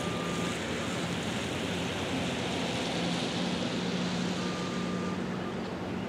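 Steady outdoor rushing noise of wind and distant traffic, with a faint steady low hum underneath and two brief faint high tones, one at the start and one about four and a half seconds in.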